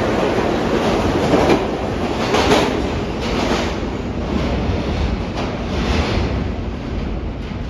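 Alstom R160A subway train pulling out of an underground station and running off into the tunnel. Its wheels clack over rail joints several times, and the rail noise fades as the train recedes.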